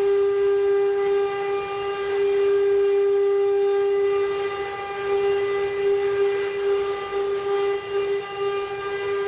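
Spindle motors of a multi-head CNC wood-carving router running with a steady, high-pitched whine that holds one pitch throughout, with faint scattered ticks above it.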